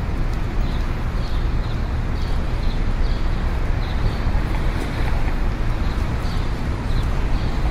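Wind buffeting the microphone: a steady, loud rushing rumble with a heavy low end.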